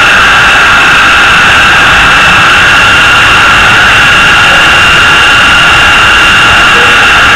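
Toy RC spy helicopter's motors and spinning rotors, running with a loud, steady high whine. It is heard right at the craft through its own onboard camera.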